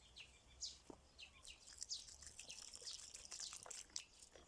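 Faint chirping of small birds: scattered high chirps at first, then a busy run of quick chirps from about a second and a half in.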